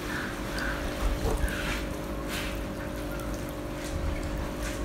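Water sloshing and trickling in a hatchery tank, with several short soft splashes as a basket of tilapia fingerlings is held and moved in the water. Under it runs the steady hum of an aerator.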